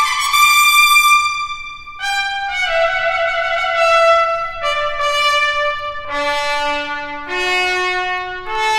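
Trumpet playing a slow line of long held notes, each about one to two seconds. The notes step downward to a low note about six seconds in, then climb back up by steps.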